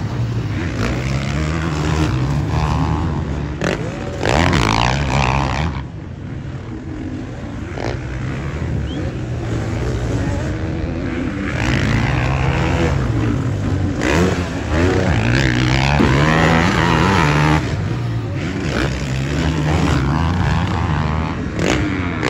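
Motocross bike engines revving hard and backing off as riders pass on the dirt track. The pitch rises and falls again and again with throttle and gear changes.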